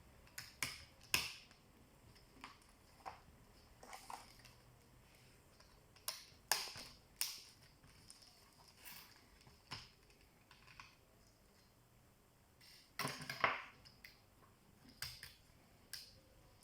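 Irregular clicks, taps and light knocks of Lenovo IdeaPad Z500 laptop parts being handled while it is taken apart, with a longer, louder scraping rattle near the end.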